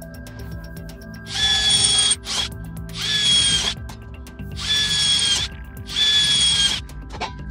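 Cordless drill boring holes through steel trunking in four short bursts, each under a second and carrying a high whine. Background music plays underneath.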